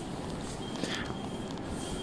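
Steady background noise of an airport terminal hall, with a thin high whine that sets in about half a second in.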